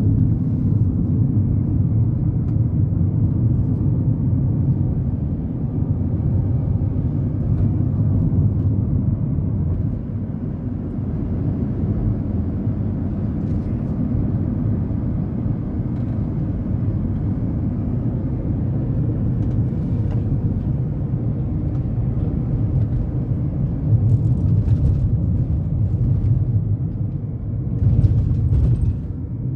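Steady low road and engine rumble heard inside the cabin of a moving Honda Element, with a couple of brief knocks near the end.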